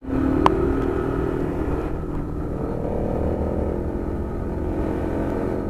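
Steady hum of a small engine over low wind rumble on the microphone, riding a bicycle in city traffic, with a single sharp tap about half a second in.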